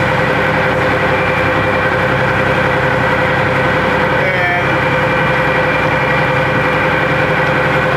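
Heavy vehicle's engine running steadily as it drives, heard from inside the cab, with a constant whine over the drone.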